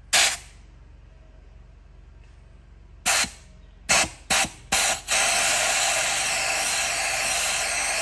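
Pressurized spray hissing from a nozzle: one short blast, then four quick blasts, then a steady hiss of about three seconds that cuts off.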